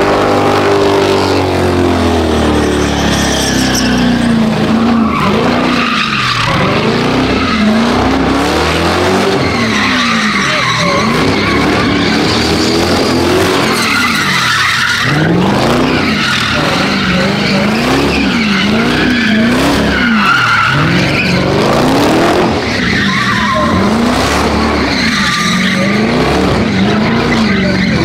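Car doing a burnout, its engine revving up and down over and over while the tyres screech and spin.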